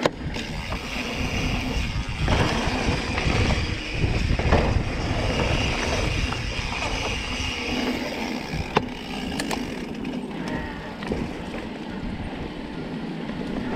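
Electric mountain bike ridden over a bumpy dirt trail: continuous tyre and riding noise with wind rumbling on the handlebar camera's microphone, and the bike's rattles and a few sharp knocks over bumps, one right at the start and a couple about nine seconds in.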